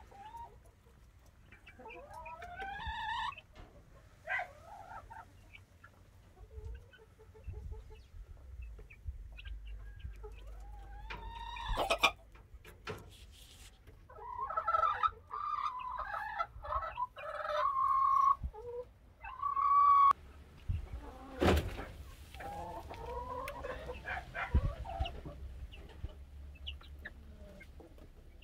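Young chickens, five-week-old Leghorn chicks, calling and clucking while feeding, with squeaky rising calls and several longer held calls. There are also a couple of sharp knocks.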